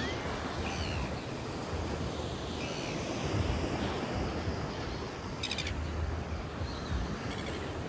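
Ocean surf breaking and washing onto a sandy beach, a steady rushing noise, with a few short bird chirps over it and a brief rapid rattle about five and a half seconds in.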